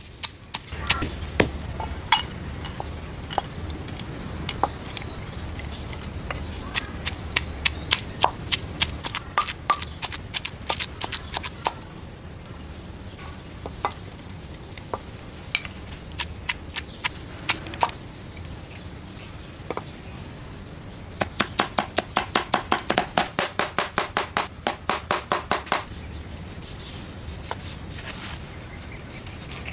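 Pestle pounding in a wooden mortar, crushing roasted peanuts: irregular knocks about two a second for the first dozen seconds. Later comes a fast, even run of knocks, about five a second with a ringing note, for about five seconds.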